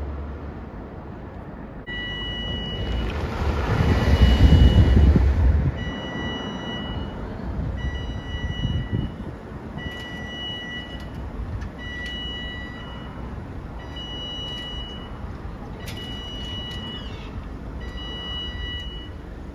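Level crossing audible warning starting about two seconds in: an electronic two-tone beep, about a second long, repeating roughly every two seconds as the crossing lights come on and the barriers lower. A passing road vehicle makes a loud rumble between about three and six seconds.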